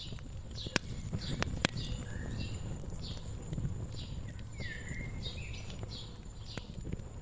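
Wood fire crackling, with a low steady rumble and a few sharp pops, mostly in the first two seconds. Small birds chirp over it in quick repeated calls.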